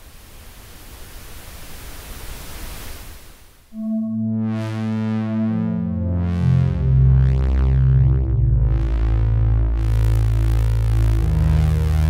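Cherry Audio Dreamsynth DS-1 software synthesizer playing presets. A swelling wash of filtered noise grows louder and cuts off just under four seconds in. A dark ambient patch follows, with sustained low chords and shifting bass notes whose brightness sweeps up and down several times.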